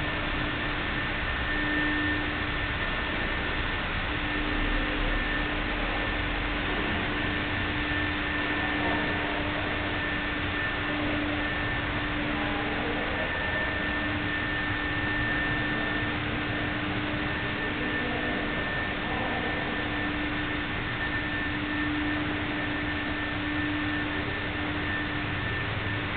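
Steady hiss with a faint steady hum at two pitches, one low and one high, that fades in and out.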